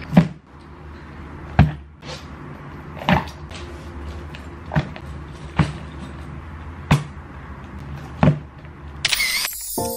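Handbags being set down on a tabletop one after another, a dull knock about every second and a half over a steady room hum. Music starts about a second before the end.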